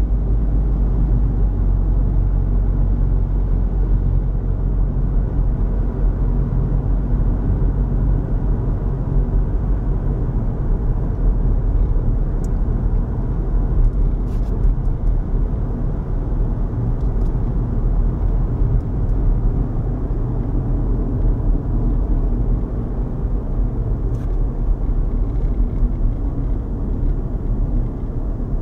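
Steady low road and engine rumble heard inside the cabin of a moving car, with a few faint ticks in the second half.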